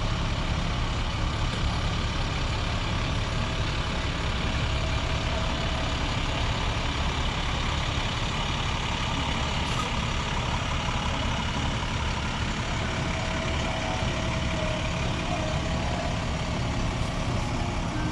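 Fire engine's diesel engine running at low speed as the truck crawls past in a slow procession, a steady low engine sound.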